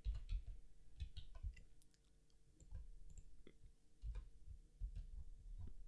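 Faint, irregular clicks of a computer mouse and keyboard keys, a dozen or so with a short lull about two seconds in, over a faint steady hum.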